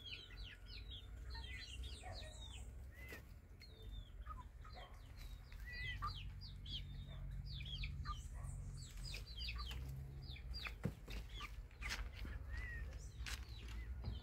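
Chickens and young chicks in a poultry yard: a constant run of short, high, falling peeps, with a few lower clucks.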